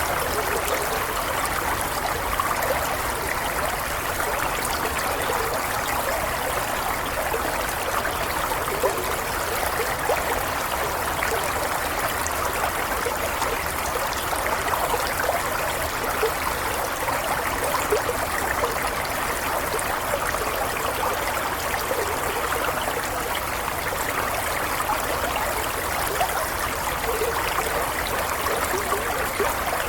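Running water flowing steadily and evenly, a continuous rush of water speckled with many small splashes, as from a small stream.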